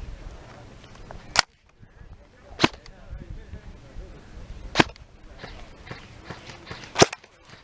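Airsoft gun firing four single sharp shots, about one to two seconds apart, close to the microphone.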